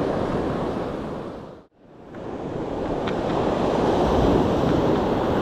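Ocean surf washing on a beach, a steady rushing wash with wind on the microphone. The sound fades out to silence a little under two seconds in, then builds back up to the same steady wash.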